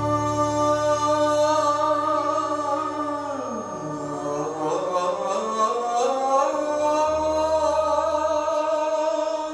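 Male solo singer performing a Turkish classical song in the Hicaz makam, holding a long note, then a melismatic run that dips about three and a half seconds in and climbs back up to another sustained note.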